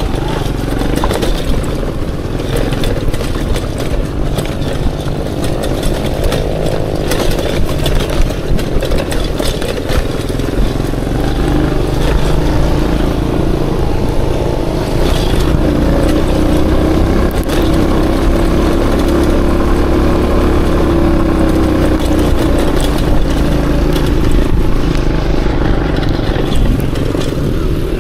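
Aveta Ranger Max Explorer motorcycle engine running while ridden, its revs rising and falling, with occasional knocks and clatter.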